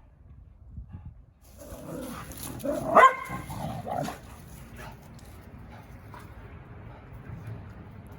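Dog barking: one loud bark about three seconds in, with quieter dog sounds around it, then a low background.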